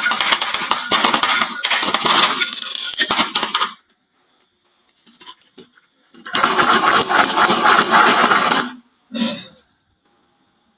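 Many marbles clattering down a wooden marble run, a dense rattle of clicks that stops for a few seconds and then comes back just as loud for about two more seconds, with a short final burst of clicks.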